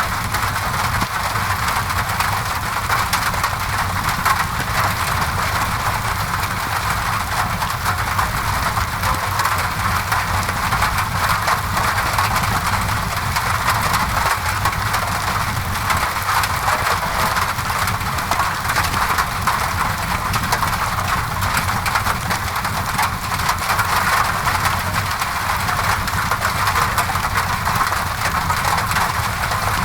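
Steady rain against a window mixed with a crackling fireplace fire, an even, unchanging hiss with fine crackles and a low rumble underneath.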